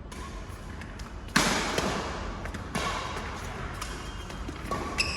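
Badminton rackets striking the shuttlecock in a doubles rally: three sharp hits, roughly a second and a half to two seconds apart, each ringing briefly in the hall. A short squeak comes near the end.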